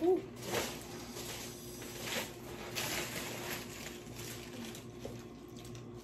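Soft, scattered rustles and small clicks of shrimp and crab shells being peeled and picked apart by hand while eating, over a faint steady hum.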